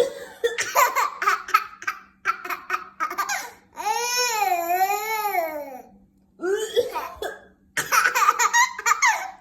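Baby laughing in bursts of giggles, with one long, high, wavering squeal of laughter about four seconds in.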